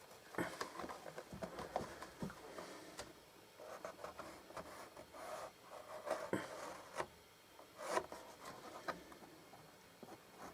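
A marking tool scratching and rubbing across leather as measurements are drawn onto it, with a few light clicks and knocks from tools being handled.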